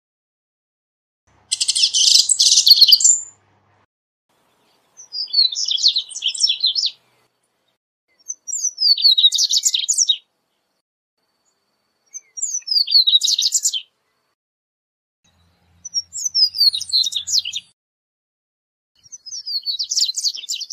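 Double-collared seedeater (corbatita) singing: six short song phrases of quick, high, down-slurred notes, about one every three and a half seconds, the first one denser and buzzier than the rest.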